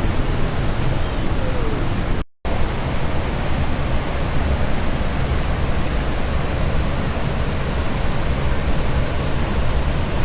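Steady rushing of the Khone Phapheng falls and rapids on the Mekong, a dense, even noise of heavy water. It cuts out briefly about two seconds in.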